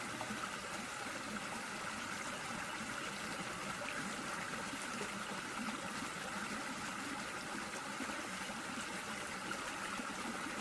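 Running water: a steady, even rush of flowing water.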